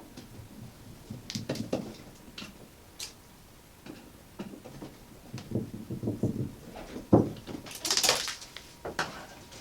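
Hand-work handling noises on a small plastic unit: scattered clicks and knocks as the peristaltic pump's inside mounting screws are removed and the pump is worked loose, with a sharp knock about seven seconds in and a brief scraping hiss just after.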